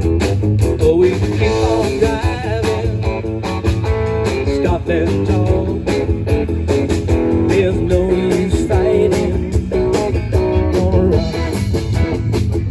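Blues-rock music with guitar, a steady beat and some singing.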